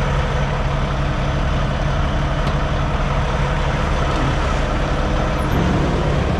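Semi-truck diesel engine idling steadily, a low, even hum.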